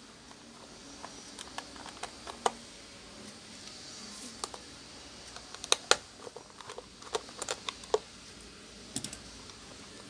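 Small screwdriver and fingers working a circuit board out of a plastic diffuser housing: scattered light clicks and taps of metal on screws and plastic, the sharpest about six seconds in.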